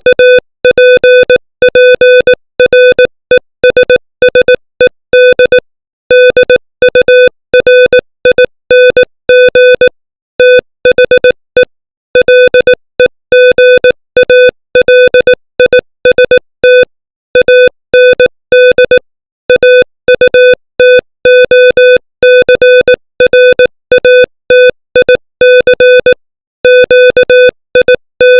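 Morse code practice tone sent at 18 words per minute: one steady, buzzy pitched beep keyed on and off in dots and dashes, with short gaps between letters and longer pauses between words.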